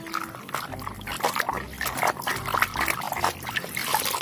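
A plastic toy vehicle being washed: water splashing and trickling, mixed with irregular clicks and rubbing from the toy being handled and scrubbed.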